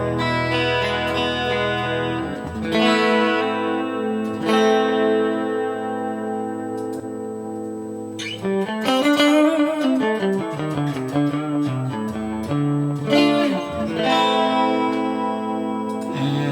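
Electric guitar played through the Mooer GE200's clean amp model: ringing chords strummed a few times, with a run of quicker single notes in the middle.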